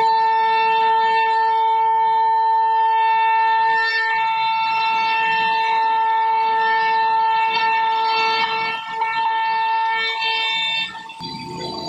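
CNC router spindle running with a steady high-pitched whine while the bit carves a relief pattern into a wooden panel, a rough cutting noise underneath. The whine drops out briefly near the end.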